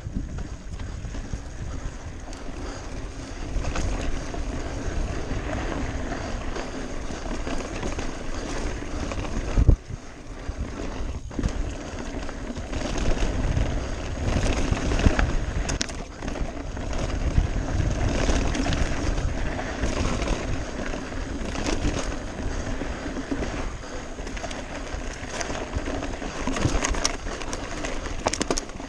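Mountain bike rolling fast downhill over a rocky dirt singletrack: tyres crunching over gravel and stones, with the bike rattling and knocking over bumps. One hard knock stands out about ten seconds in.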